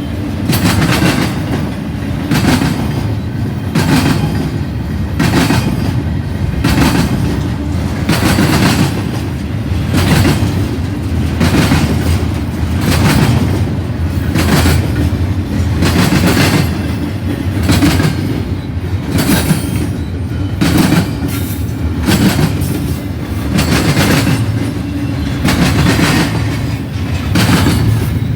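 Intermodal freight cars rolling past with a steady low rumble. The wheels strike the rail joints in a regular, repeating clickety-clack.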